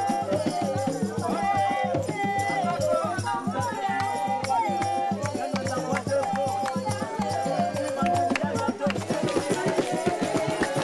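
Polyphonic group singing, several voices weaving at once, over drums and a shaken rattle keeping a fast, steady beat.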